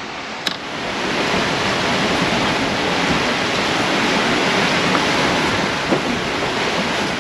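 Steady rush of water along a sailing catamaran's hulls, with wind, under sail alone with its engines shut off. A single sharp click comes about half a second in.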